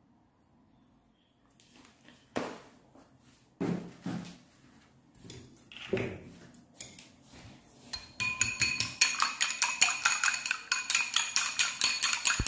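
Chopsticks beating two eggs in a white ceramic bowl: a fast, even run of clinks against the bowl, about four or five strokes a second, starting about eight seconds in. Before that come a few scattered knocks.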